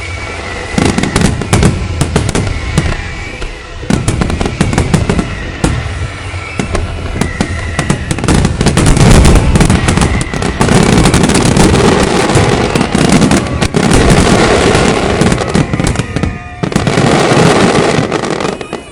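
Aerial fireworks shells bursting in a dense, rapid barrage with heavy crackling. The barrage starts about a second in, eases briefly near the end, then comes back loud again.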